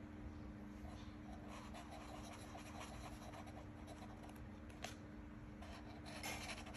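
Felt-tip marker faintly scratching on paper wrapped around a plastic cup, in short drawing strokes. A steady low hum runs underneath, and there is one short click about five seconds in.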